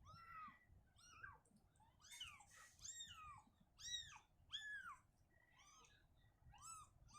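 Week-old kittens mewing in a rapid series of short, high, rising-then-falling cries, about two a second, faint.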